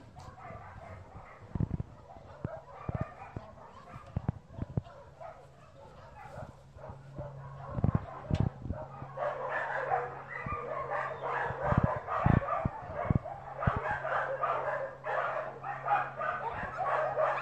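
Dogs barking in a yard, a few scattered barks at first that build into a dense, louder run of barking about halfway through. A steady low hum and occasional dull bumps run underneath.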